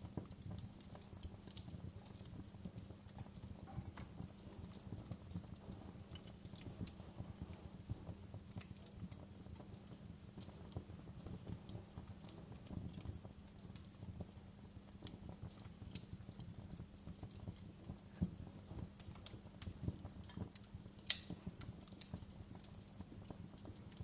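Wood fire crackling: a dense stream of low crackles with scattered sharper pops, one louder pop near the end.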